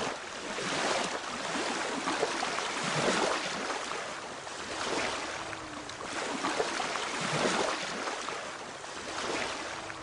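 Ocean waves washing on a shore: a steady rush of surf that swells and ebbs every couple of seconds.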